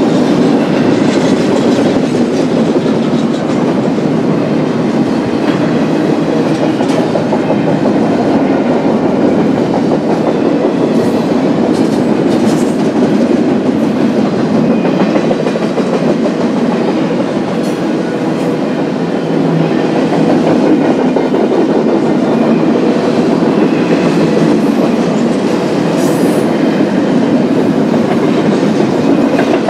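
Freight train cars rolling steadily past, a continuous rumble of steel wheels on rail with clickety-clack from the wheels crossing rail joints.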